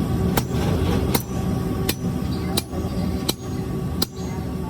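Hammer blows on hot steel at an anvil while forging blacksmith's tongs: six sharp strikes at an even pace, about one every 0.7 s, each with a short metallic ring, over a steady low background noise.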